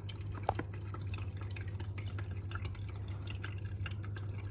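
Small waterfall in a bioactive frog enclosure trickling and dripping steadily over a low continuous hum. A single light click comes about half a second in.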